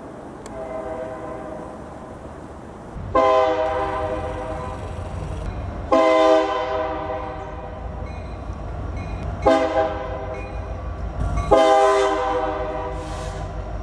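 Train's multi-chime air horn sounding: first a fainter blast, then four loud blasts, the third shorter than the others. This is the long-long-short-long pattern sounded for a grade crossing. A low rumble of the train runs underneath and grows louder near the end.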